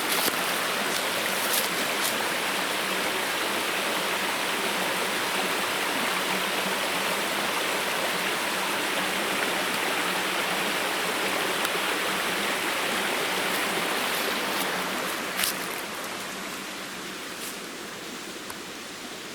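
Waterfall rushing steadily, a dense even noise of falling water that turns somewhat quieter about three quarters of the way through, with a light click or two.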